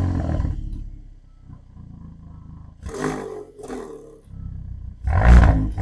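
Hyundai i30N's turbocharged four-cylinder engine being revved at the exhaust: a rev that drops back to idle, then a loud rev near the end. The engine is being blipped to test the exhaust flap after a new actuator spring.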